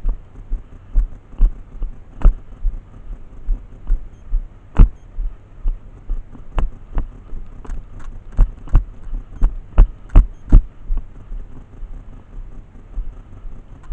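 Footsteps of a walking airsoft player, heard as steady low thumps about twice a second, with sharper irregular clicks and knocks among them.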